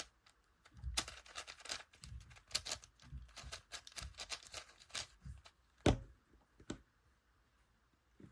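Quick, irregular plastic clicks and clacks from handling a 4x4 or 5x5 puzzle cube. The clicking goes on for about five seconds, then come two sharper single clicks and quiet.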